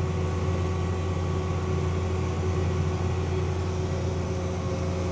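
John Deere tractor engine running steadily under load while pulling an air seeder through a paddock, a constant low drone with a faint steady hum above it.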